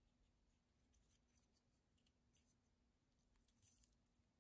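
Near silence: room tone with a faint steady hum and a few very faint ticks.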